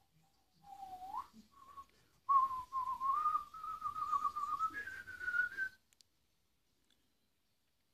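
A man whistling a short tune: a rising slide about a second in, then a wavering melody that steps up in pitch near the end and stops about two-thirds of the way through.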